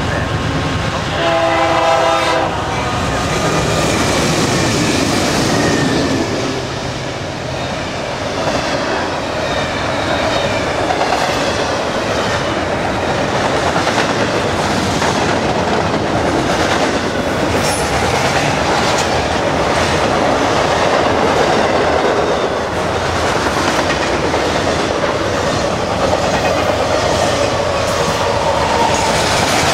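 BNSF intermodal freight train led by GE C44-9W diesel locomotives: the lead locomotive's horn sounds a chord that stops about two and a half seconds in. The locomotives then pass, and a long run of double-stack and trailer cars follows, wheels clattering steadily over the rail joints.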